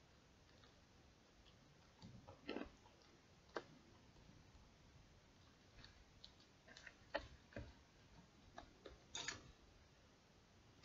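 Faint, irregular sticky clicks and pops of slime being pressed, poked and stretched by fingers.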